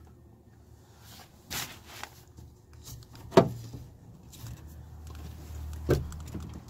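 A few scattered clicks and knocks from hands handling metal parts inside a minivan's sliding-door cavity, the sharpest about three and a half seconds in.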